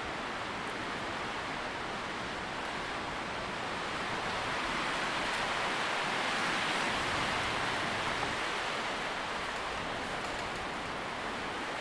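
Wind rustling through tree leaves, a steady hiss that swells into a gust in the middle and eases off again.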